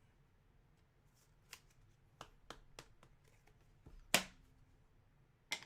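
Trading cards being handled and slid through by hand: faint scattered clicks and rustles, with a sharper snap about four seconds in and another near the end.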